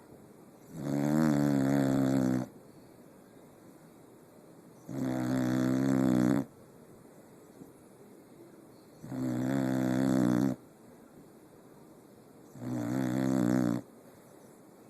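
Snoring: four long, loud snores, each lasting about a second and a half, coming at a steady rhythm about every four seconds.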